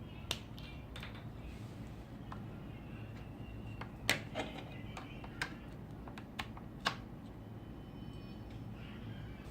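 Irregular sharp clicks and taps, about ten of them, the loudest about four seconds in, over a low steady hum.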